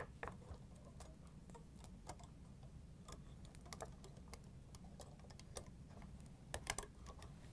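Faint, scattered light clicks and clinks of hands handling a refrigerator ice auger's stack of metal blades and plastic spacers while wrapping rubber bands around them. A small cluster of clicks comes near the end, over a low steady hum.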